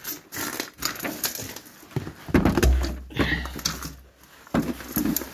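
A door being opened and someone stepping out, with clicks and knocks from the door and the phone being handled. A steady low rumble of wind on the microphone sets in about two and a half seconds in and drops away near the end.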